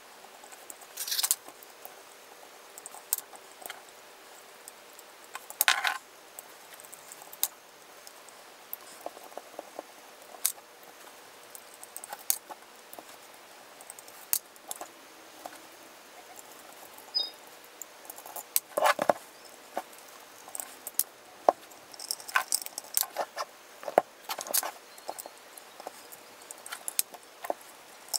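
Small screwdriver working out the screws of a Sirena-3 antenna's painted metal housing: irregular light clicks and scrapes of the blade in the screw heads and on the casing, with a few louder knocks of the housing being handled.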